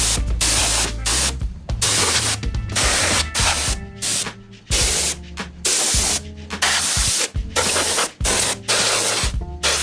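Can of compressed air sprayed in many short hissing blasts with brief pauses, blowing dust out of a PC case. Background music with a low bass line plays underneath.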